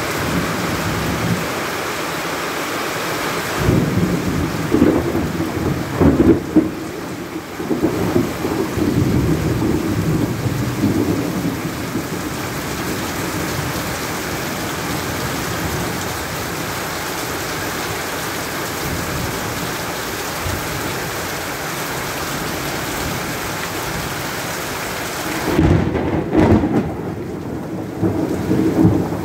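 Heavy monsoon rain pouring steadily onto a paved yard and veranda roof. Thunder rumbles from about four seconds in for several seconds, and again near the end.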